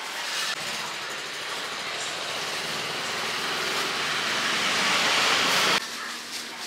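Gas burner fed from an LPG cylinder, hissing. It starts abruptly about half a second in, grows slowly louder, and cuts off sharply near the end.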